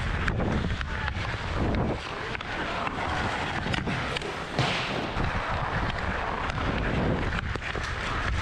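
Ice hockey skates scraping and gliding on the ice, with wind rushing over a helmet-mounted camera microphone and light clicks of a stick handling the puck. A sharper knock about four and a half seconds in.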